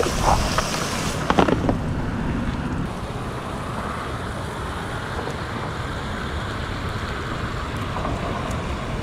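Steady wind blowing across the microphone, with a few short knocks and rattles in the first couple of seconds.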